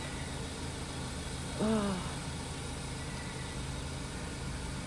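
A steady low mechanical hum, like an idling engine or ventilation plant. About two seconds in, a woman's voice makes a short murmur lasting about half a second.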